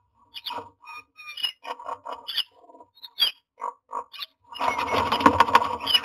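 Common myna in a wooden nest box making short calls and clicks while it shifts about in the dry grass nesting material, with a denser, louder stretch of sound in the last second or so as it settles into the nest.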